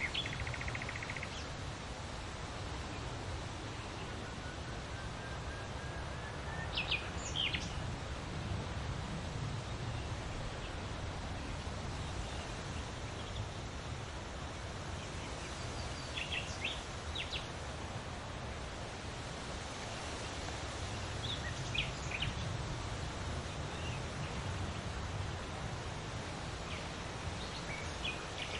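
Wind rustling through large leaves in a steady rush, with short bird chirps now and then and a rising run of notes a few seconds in.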